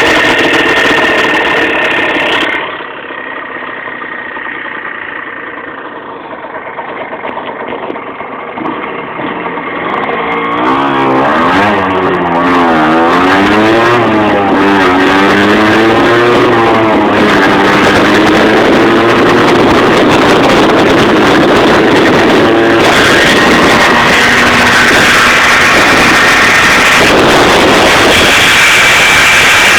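Moped engine running. It runs high at first, drops to a quieter idle for several seconds, is revved up and down several times, then is held at steady high revs. The owner suspects a bearing failure.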